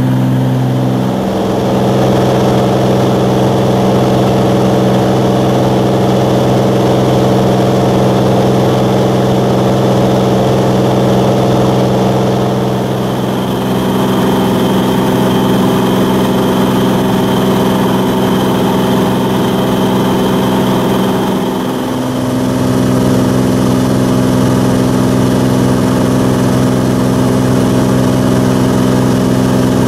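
Cabin drone of the Cirrus SR22's six-cylinder piston engine and propeller in cruise flight, a steady, loud hum. Its pitch shifts abruptly about a second in, near the middle and again about two-thirds through.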